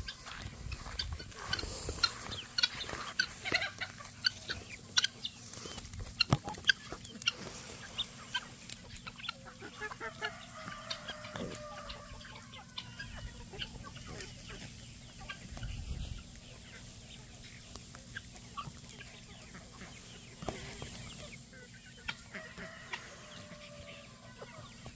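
A flock of chickens clucking and calling, with many sharp short ticks over the first several seconds.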